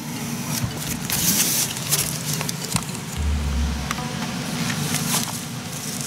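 Pieces of green adhesive tape crinkling and rustling in a baby's hands in irregular bursts, over a steady low background hum. A short low rumble comes a little past the middle.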